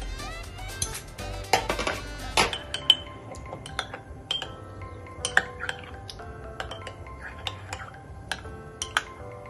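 A whisk beating a thin rice-flour batter in a plastic mixing bowl, clicking and clattering against the bowl in an irregular run of taps, loudest in the first few seconds. Background music plays under it.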